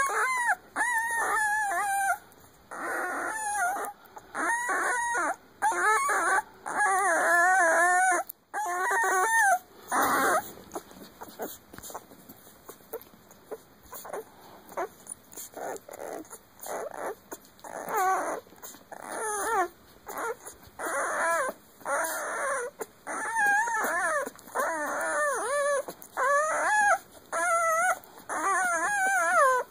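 Newborn puppy whining: high, wavering squeals in short bouts one after another, easing to softer squeaks for several seconds about a third of the way through before picking up again.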